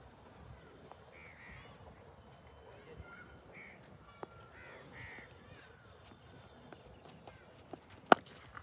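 Crows cawing several times in short arched calls, with one sharp, loud crack near the end.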